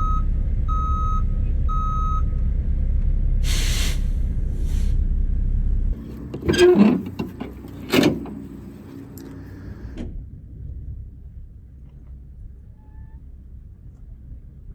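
Box truck engine running with its reversing beeper sounding three times, a hiss of air about three and a half seconds in, then the engine cuts off suddenly about six seconds in, followed by two loud knocks.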